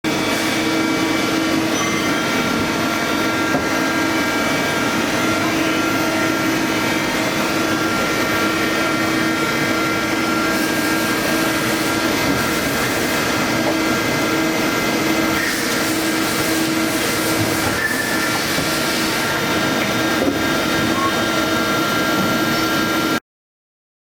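Okuma-Howa ACT 2SP-3 twin-spindle CNC lathe running: a steady machine hum with several steady whining tones over it, cutting off abruptly near the end.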